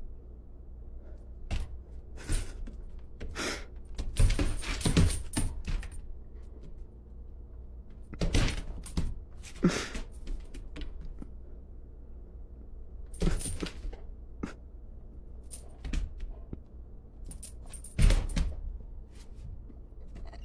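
A Doberman pinscher's claws clicking and skittering on a vinyl floor as it pounces and paws at a laser-pointer dot, in scattered bursts of quick taps and scrapes, busiest about four to six seconds in.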